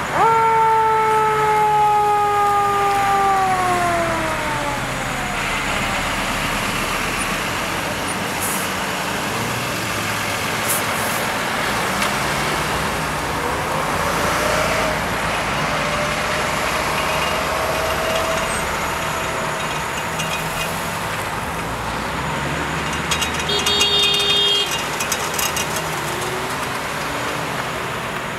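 An emergency-vehicle siren winds down, its pitch falling over the first few seconds. Heavy truck engines and passing traffic follow, with a brief rising whine midway and a short burst of rapid ticking with a tone near the end.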